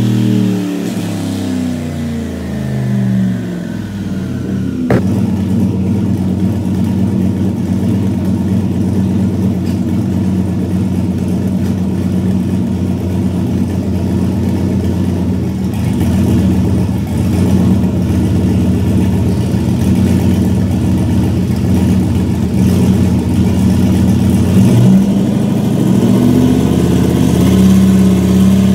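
Chevrolet Silverado pickup's engine on a chassis dyno: revs winding down at first, a sharp pop about five seconds in, then running steadily at low revs with a choppy note. Near the end the revs climb to a higher steady speed.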